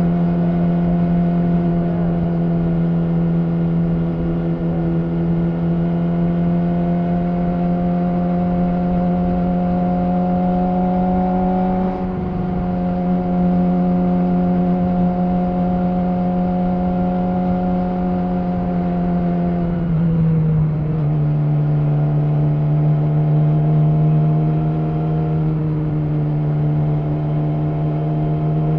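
Yamaha R6's 600cc inline-four running at a steady cruise through an Akrapovič slip-on exhaust. The pitch holds steady, then steps down about twenty seconds in.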